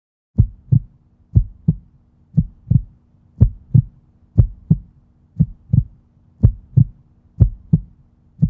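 Outro soundtrack of deep, heartbeat-like double thumps, one pair about every second, over a faint steady low drone.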